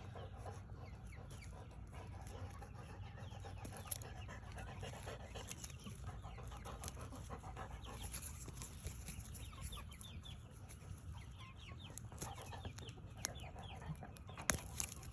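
Chickens clucking softly, with a couple of sharp clicks, one about four seconds in and one near the end.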